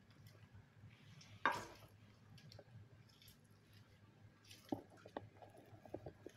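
Hands squeezing a lemon half over raw chicken pieces and rubbing the juice in: faint wet squishing and dripping, with one louder squelch about a second and a half in and a few small clicks near the end, over a low steady hum.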